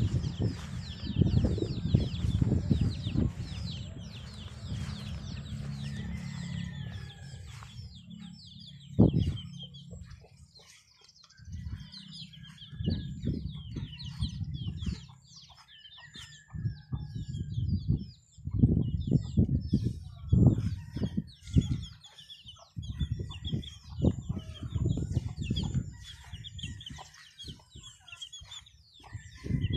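Chickens clucking, with many short high calls throughout, over repeated bursts of low rumble on the microphone.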